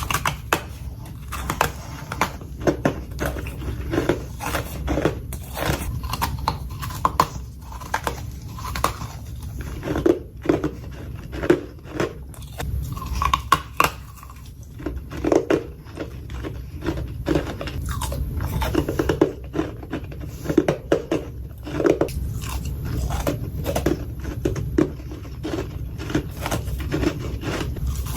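Freezer frost being bitten and chewed close to the microphone: many short, irregular crunches one after another, over a steady low hum.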